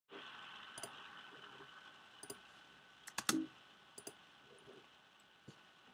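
Faint, scattered clicks of a computer mouse and keyboard, about half a dozen over several seconds, the loudest a quick double click just after three seconds in. A faint steady hum runs under the first two seconds.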